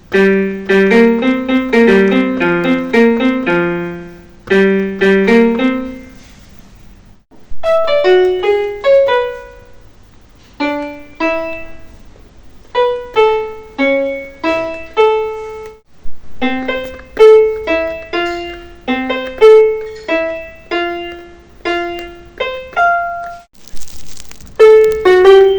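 Piano playing the tunes of smartphone default ringtones, several short melodies one after another with brief pauses between them. The first is in low, dense chords; the later ones are higher single-note melodies.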